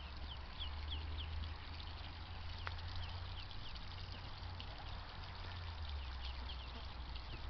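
Ducklings peeping: many short, high, downward-sliding peeps, several a second, over a steady low rumble.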